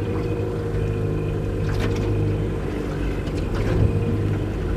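Boat motor running steadily at an even speed, with two light knocks about two and three and a half seconds in.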